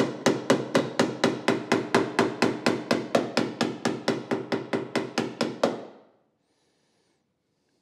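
Ball-peen hammer rapidly tapping the MGA's sheet-metal rear body panel, about five even blows a second, each with a short metallic ring. The panel is held under pressure by a jack as it is pushed back into shape. The tapping stops about six seconds in.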